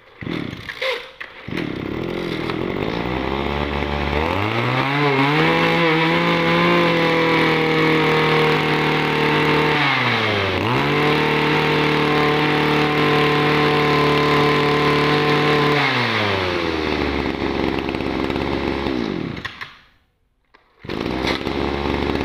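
Echo (Kioritz) 235 brush cutter's small 23cc two-stroke engine running as a test: it idles, is revved to high speed and held there, drops briefly and is revved again, then falls back to idle and is shut off near the end.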